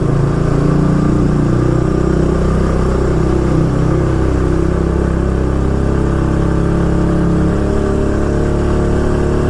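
Motorcycle engine running steadily while riding, its engine note holding nearly even.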